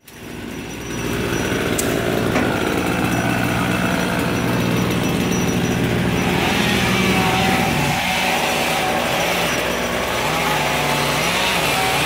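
Gasoline chainsaw engine running steadily; its pitch drops about two-thirds of the way through, then wavers up and down near the end.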